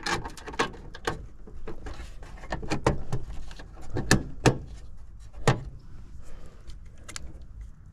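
Irregular sharp clicks, knocks and short scrapes of hand tools and parts being handled while working on a heat pump's outdoor unit. The loudest knocks come about four seconds in, over a low steady hum.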